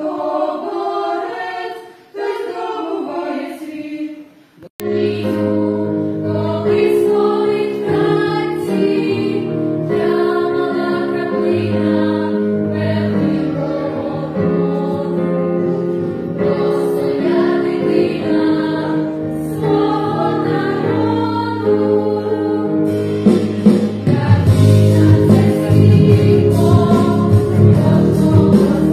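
A small women's vocal ensemble singing unaccompanied, broken off after about four and a half seconds by a children's choir singing to instrumental accompaniment. The accompaniment grows fuller and louder near the end.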